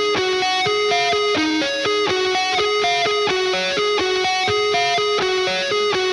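Instrumental background music: a plucked string instrument picking a quick, repeating pattern of single notes, about four a second.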